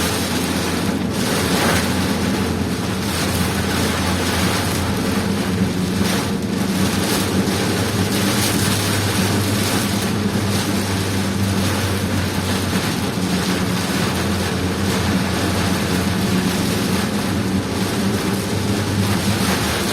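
A vehicle driving through a heavy downpour: steady rain and road noise with a constant low engine hum underneath.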